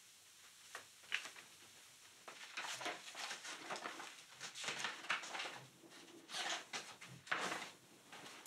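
Paper pages of a spiral-bound notebook being leafed through: a run of irregular rustles and flaps, after a single light click about a second in.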